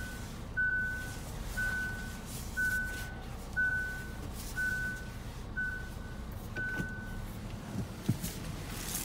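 2019 Hyundai Kona's in-cabin reverse warning beeper sounding with the car in reverse gear: a steady beep about once a second that stops about seven seconds in, as the car is taken out of reverse. A low steady hum runs underneath, with a soft knock near the end.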